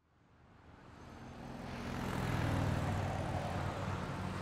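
A vehicle engine running steadily, fading in from silence over the first two seconds or so.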